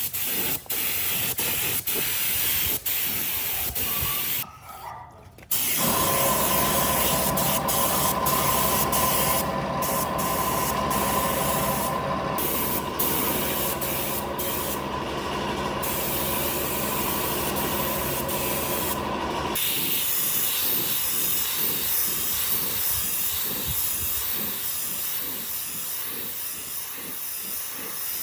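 Workshop compressed-air hiss from an air tool, steady and continuous, with a brief dip about five seconds in. From about six seconds in, a steady machine hum runs under the hiss, then cuts off suddenly about two-thirds of the way through.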